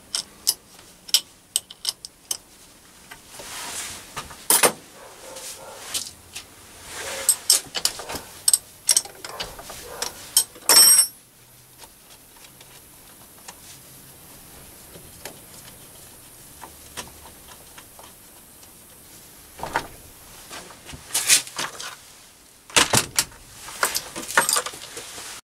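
Hand tools and steel parts of a lathe milling slide clinking and knocking against each other: a run of sharp metallic clicks and taps, a loud clatter about eleven seconds in, a quieter stretch, then more clinks near the end.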